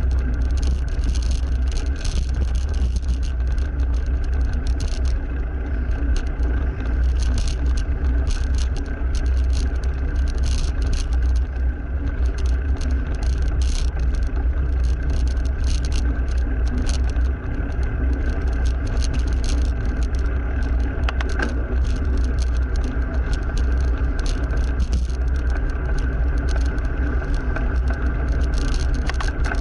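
Continuous road noise of a bicycle ride alongside heavy motor traffic: a steady deep rumble with passing cars and frequent small clicks and rattles.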